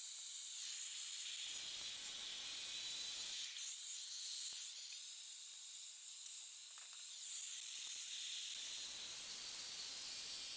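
Belt sander running against the cut bottom edge of a wooden base molding: a steady abrasive hiss that swells and eases in passes every few seconds as the sander is worked along the edge.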